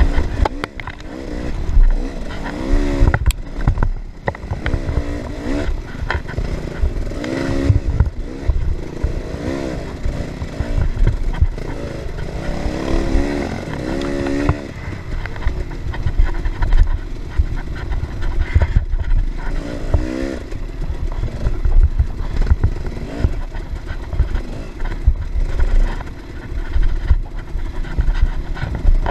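Dirt bike engine revving up and down over and over as it is ridden hard along a rough woods trail. A heavy low rumble and scattered knocks and rattles run under it as the bike bounces over the ground.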